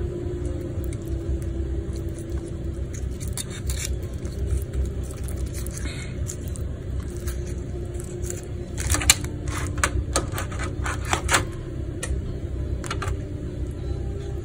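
Lobster tail shells handled on a metal baking pan: light scraping, then a cluster of sharp clicks and taps about nine to eleven seconds in and a couple more near the end, over a steady low hum.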